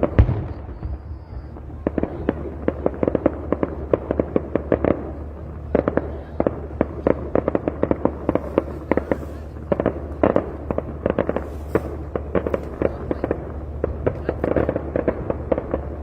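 Fireworks display going off: a dense run of sharp cracks and bangs, several a second, over a steady low hum. The loudest bang comes about a quarter-second in.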